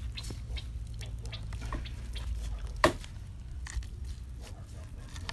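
Soft wet squishing and small clicks of a chili-marinated scad being pushed by a gloved hand into a green bamboo tube, with one sharper knock about three seconds in, over a steady low hum.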